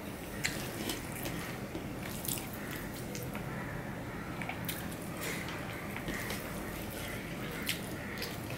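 Eating up close: chewing with scattered wet mouth clicks, and fingers squishing rice mixed with curry on a steel plate.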